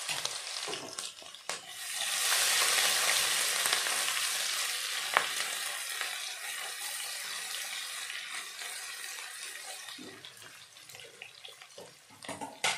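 Cumin, grated ginger and green chillies sizzling in hot oil in a deep pan while being stirred with a silicone spatula. The sizzle swells about two seconds in, then slowly dies down, with a couple of light clicks along the way.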